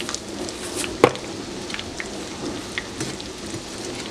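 Breaded walleye fillets frying in oil in a pan: a steady sizzle with scattered crackles and pops. A single sharp knock about a second in.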